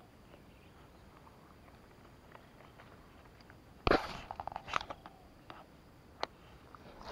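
A hand knocking against and rubbing over the camera microphone about four seconds in: a loud bump, then a quick run of scraping clicks, and a single sharp click about two seconds later, over faint outdoor background.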